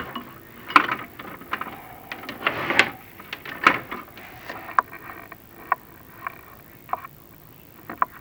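Irregular clicks, knocks and short scrapes as a chimney inspection camera and its cable are worked down a brick flue and rub against the brick.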